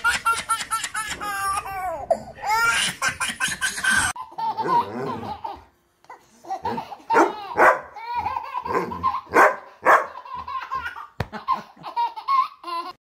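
Babies laughing hard: quick, high belly laughs in runs, a brief pause about halfway, then another long run of high, rhythmic baby laughter.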